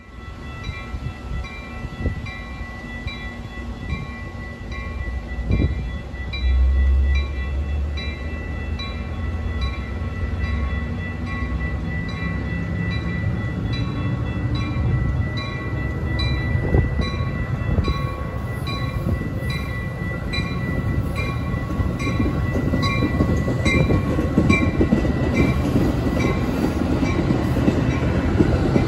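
Metra commuter train of bi-level coaches approaching and passing, its wheels' rumble growing louder through the second half. A rhythmic ringing repeats throughout, and a gust of wind hits the microphone about six seconds in.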